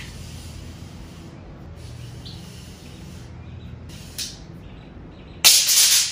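Lufkin steel tape measure blade being slowly pushed out unsupported in a standout test, with a single click about four seconds in. Near the end the blade buckles and falls, making a sudden loud metallic clatter that lasts under a second.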